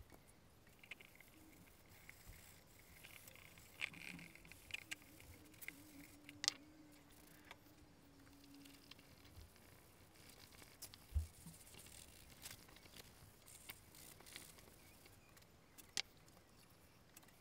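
Very quiet, with scattered small clicks and taps and one dull knock about eleven seconds in, and a faint low hum for a few seconds in the first half.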